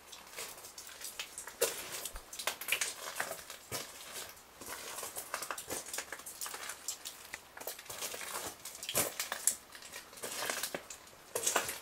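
Footsteps scuffing and crunching on a gritty stone floor, an irregular run of short crunches and clicks in a small, enclosed space.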